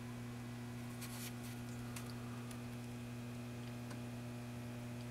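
Steady low electrical mains hum from powered-up bench electronics, with a few faint short clicks about one to four seconds in.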